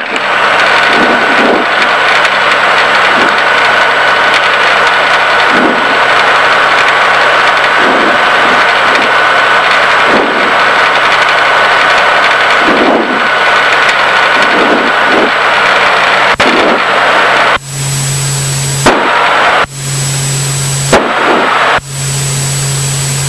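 Cabin noise of a Diamond DA40 single-engine light aircraft on final approach: steady engine, propeller and airflow noise with a faint steady whistle. About 17 seconds in it drops in level and turns into a lower hum that cuts out briefly twice.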